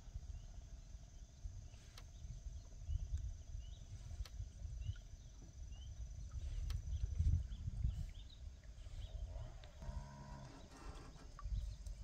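Outdoor ambience: wind buffeting the microphone as an uneven low rumble, with faint short chirps. About ten seconds in there is a brief pitched call.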